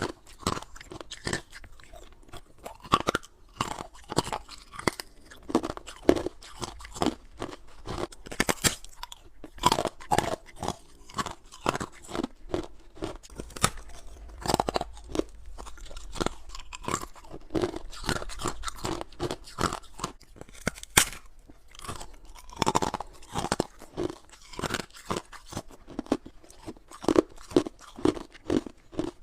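Ice frozen in a humidifier tray and coated with freezer frost being bitten and chewed, a steady run of loud, sharp crunches about one or two a second.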